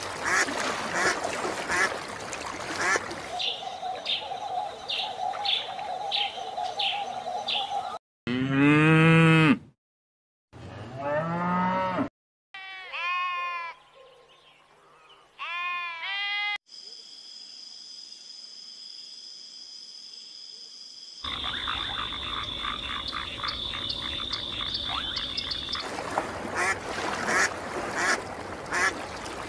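A run of different animal calls cut one after another. It opens with fast, repeated waterbird calls. In the middle come low bleats and moos of sheep and cattle, each call rising and falling, and then a steady high trill. It ends with rapid waterbird calls again.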